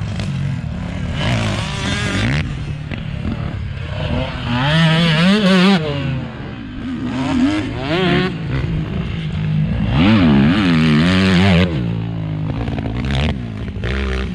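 Off-road vehicle engine revving up and down repeatedly while riding, loudest about five and ten seconds in.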